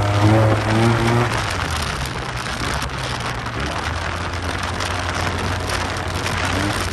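Yamaha TMAX scooter's parallel-twin engine pulling, its note rising for about the first second, then settling to a steady low hum under a loud rush of wind noise on the microphone at riding speed.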